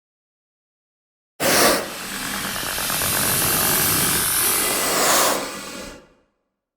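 Xenomorph creature hiss sound effect: a harsh, loud hiss that starts suddenly about a second and a half in. It holds for about four seconds, swells once more near the end, then fades out.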